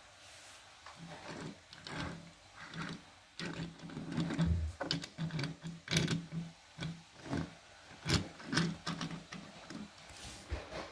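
Die-cast Hot Wheels '67 Jeepster Commando toy car handled and shifted about on a wooden desktop: irregular small clicks, taps and scrapes of the metal-and-plastic car against the wood.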